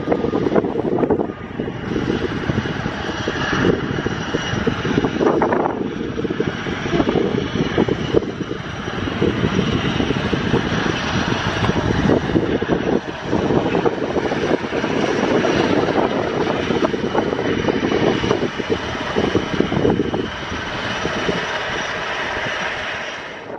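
Twin-turboprop ATR airliner's engines and propellers droning steadily as it lands, with a thin steady high whine over the drone. Wind buffets the microphone at times.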